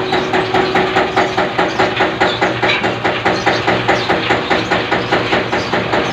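Beaten-rice (poha) mill running: its heavy wheel turns in the metal pan, beating roasted paddy into flakes, with an even beat about four times a second over a steady hum.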